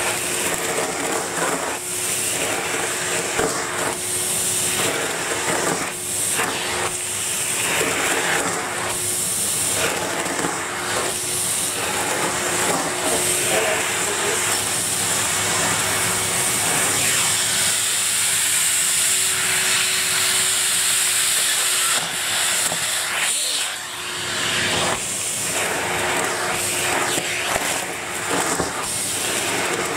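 Numatic Henry vacuum cleaner running steadily with a constant hum while sucking dry leaves off a carpet. Irregular crackling comes as leaves go up the hose, easing for several seconds around the middle before picking up again.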